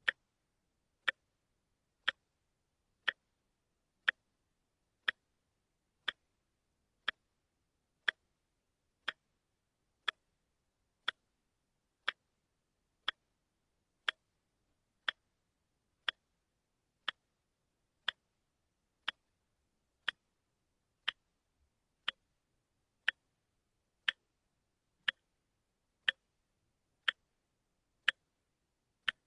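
A watch ticking steadily, one sharp tick about every second.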